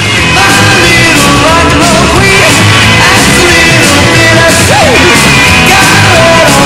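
Loud rock music with a steady beat, distorted guitars and a singing voice.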